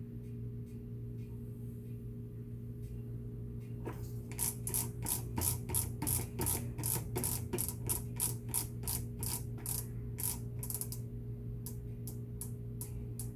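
Steady electrical hum from a Whirlpool top-load washer, with a fast run of sharp mechanical clicks, about four a second, that starts about four seconds in and thins to a few scattered clicks near the end.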